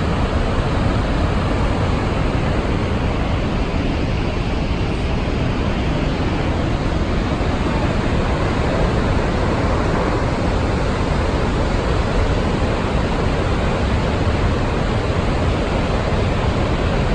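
Niagara Falls: the steady rush of a great volume of falling water, an even, unbroken noise strongest in the low end.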